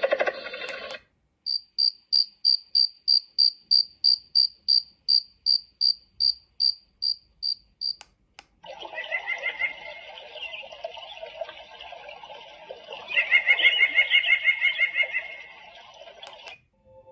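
Tuodi white noise machine playing its nature sounds. First a cricket chirps steadily, about three high chirps a second. After a brief pause a dense night chorus of frogs and insects takes over, growing louder for a couple of seconds near the end.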